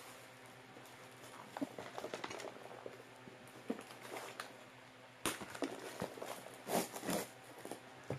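Cardboard product boxes and plastic packaging being handled during an unboxing: scattered rustles, taps and scrapes, with a few louder ones about five seconds in and again around seven seconds.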